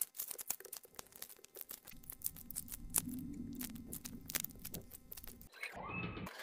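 Hands squeezing and kneading crumbly cookie dough in a bowl, close up: a string of small crackles, crunches and rustles.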